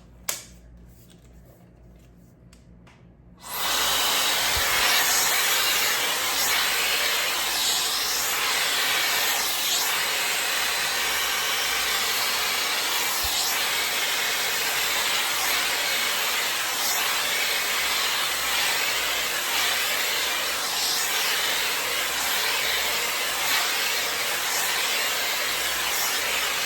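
A few handling clicks, then about three and a half seconds in a high-speed 5-in-1 hot-air styler (hair dryer brush) switches on and runs with a steady, loud rush of blowing air.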